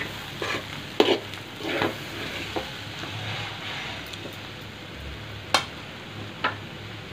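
Steel spoon stirring and scraping dry cabbage fry in a steel kadai, with short scrapes and clinks of spoon on pan, several in the first few seconds and a couple more later, over a low steady frying sizzle.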